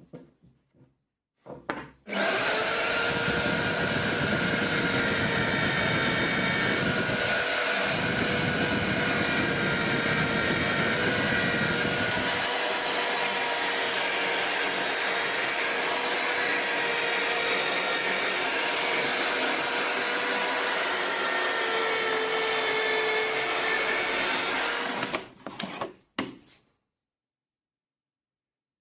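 Mini chainsaw running and cutting through a log for slabbing, with a steady motor whine. It starts suddenly about two seconds in, runs evenly for over twenty seconds, and cuts off near the end.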